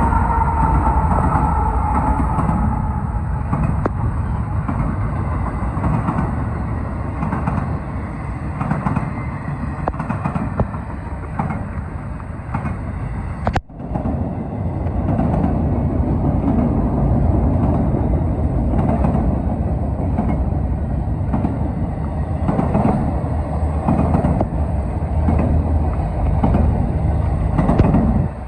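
Norfolk Southern freight train rolling past, a steady rumble with the clack of wheels over rail joints, recorded muffled and rough through a phone with rain in its microphone. A tone fades in the first couple of seconds, and the sound cuts out for an instant about halfway through.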